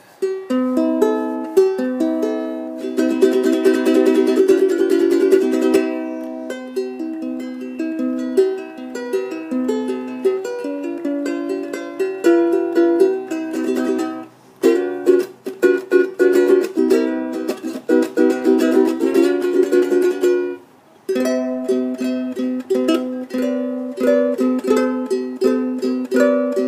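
Kala SMTE spalted maple ukulele played solo, a run of strummed chords and picked notes, each note ringing clear and crisp. The playing breaks off briefly twice, about 14 and 21 seconds in.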